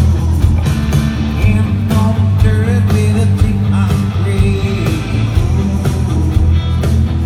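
A rock band playing live at a sound check, with a singer's voice over the guitars.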